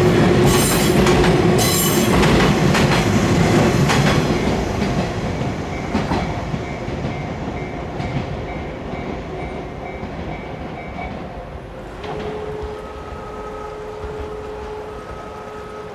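Electric passenger train passing over a level crossing, its wheels clacking over the rail joints, the noise fading away from about four seconds in. A steady tone comes in about twelve seconds in.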